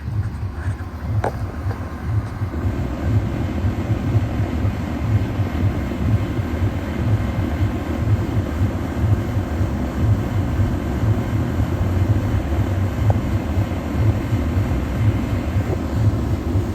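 Carrier Comfort central air-conditioner condensing unit running, with its Genteq condenser fan motor and Copeland scroll compressor: a steady, loud, low hum and rush of fan air.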